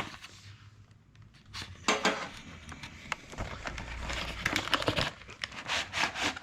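Packaging of a boxed solar battery charger being handled: irregular crinkling and rustling with scattered clicks and taps, loudest about two seconds in.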